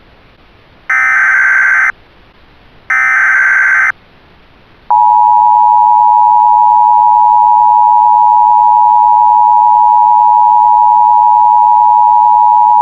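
Emergency Alert System tones over a faint hiss: two one-second bursts of the SAME digital header screech, then a second's pause and the two-tone attention signal, a steady dual-tone beep held for about eight seconds and cut off sharply.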